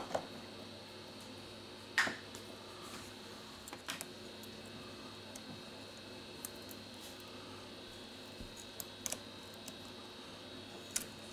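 Sparse small clicks of a screwdriver and metal tweezers against the Huawei P10's metal bracket and internal parts, the sharpest about two seconds in, over a faint steady hum.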